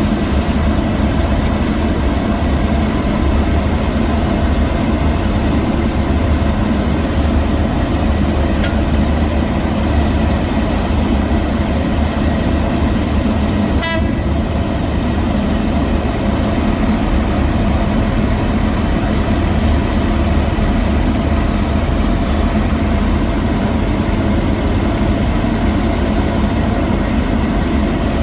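Heavy road-construction machinery engines running steadily: a constant low hum with a held tone over it, and one short click about fourteen seconds in.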